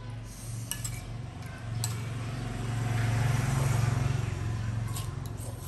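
Metal spoon clinking a few times against a ceramic bowl while eating. Underneath runs a steady low rumble that swells and fades again in the middle.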